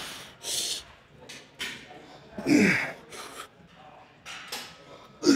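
A man's forceful exhales and grunts, one with each rep of a heavy set of dumbbell curls, coming every two to three seconds. The loudest grunt is near the end.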